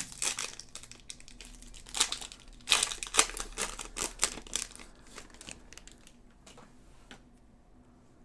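Foil wrappers of a stack of Topps Chrome trading card packs crinkling as they are torn open, in dense crackly bursts that are loudest about two to four and a half seconds in. The crinkling then thins to a few faint rustles and clicks.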